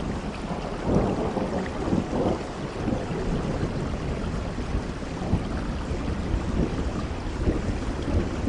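Steady rain falling, with low thunder rumbling under it and swelling a little about a second and two seconds in.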